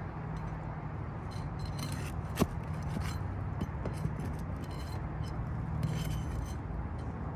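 Steel flat bar prying under asphalt shingles, breaking their sealant strips with short crackling scrapes and a sharp metal click about two and a half seconds in. A steady low rumble runs underneath.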